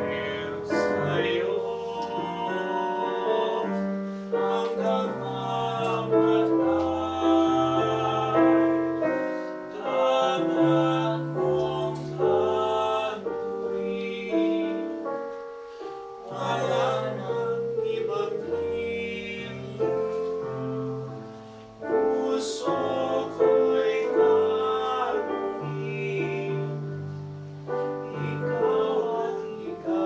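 Classically trained male voices singing a Tagalog song in operatic style, with piano accompaniment.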